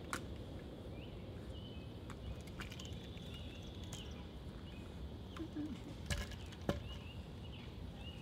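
A few sharp knocks of a drill rifle being spun and caught, two close together about six seconds in, the second the loudest, over steady outdoor background noise with small birds chirping.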